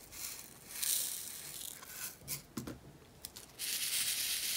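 Small plastic diamond-painting drills rattling and sliding in a plastic tray as they are scooped up. There is a hissing rattle about a second in, a few light clicks, and a steadier rattling hiss near the end.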